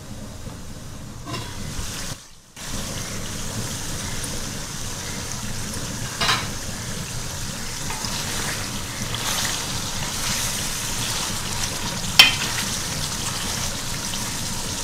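Chicken pieces sizzling steadily in oil and their own juices in an uncovered aluminium pot on high flame, the chicken's water cooking off. Two short knocks against the pot, the louder one near the end.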